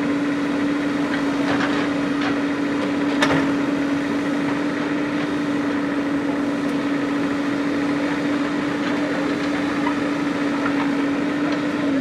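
JCB backhoe loader's diesel engine running steadily at high revs with an even whine, with a single knock a little over three seconds in. At the very end the engine note falls as the revs drop.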